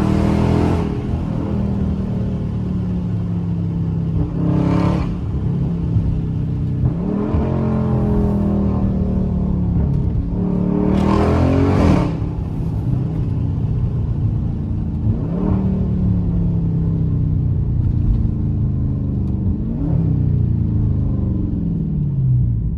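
Dodge Charger Scat Pack's 392 HEMI V8 exhaust heard through an open window while driving, its pitch rising and falling several times as the car accelerates and shifts, with a few louder swells.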